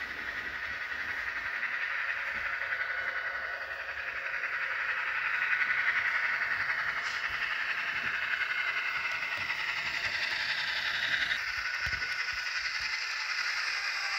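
Rapido N scale Via Rail F40PH-2D model locomotive running along the track, a steady hissing whir with faint whining tones, growing louder to a peak about halfway through.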